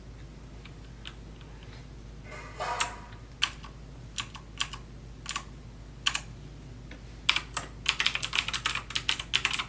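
Clicky blue switches of an AUKEY KM-G3 mechanical keyboard being pressed: single key clicks spaced a second or so apart starting about two seconds in, then rapid typing near the end.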